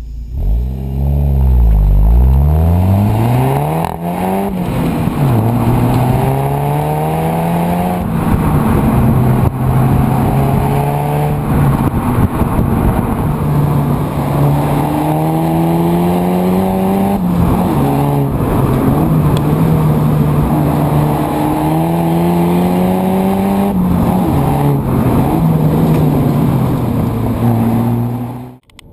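The 2014 Volkswagen Golf GTI Mk7's 2.0-litre turbocharged four-cylinder engine and exhaust. The revs swing quickly up and down a few times in the first few seconds. After that the pitch climbs under throttle and falls back several times as the car is driven.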